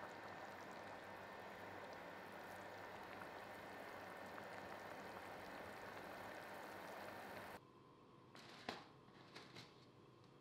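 Coconut-milk vegetable stew simmering in a pan, a steady bubbling hiss. About seven and a half seconds in it cuts off, and a few light clicks and knocks follow as a tall glass jar of dry fettuccine is handled.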